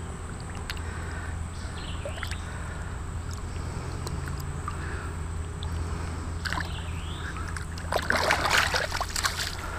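Creek water sloshing around a hand as a smallmouth buffalo is released, with a louder splash about eight seconds in as the fish kicks away. A steady low hum runs underneath.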